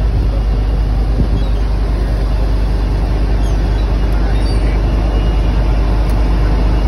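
Fishing boat's engine running steadily underway, a deep, even drone with rushing noise over it.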